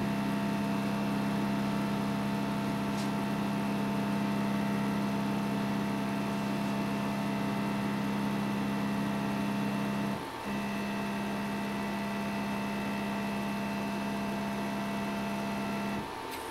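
CNC machine's Z-axis stepper motor driving the end mill slowly down toward a copper touch-off plate during an automatic Z-zero probe: a steady low whine with a fainter higher tone. It breaks off briefly about ten seconds in, resumes, then stops about sixteen seconds in as the bit reaches the plate.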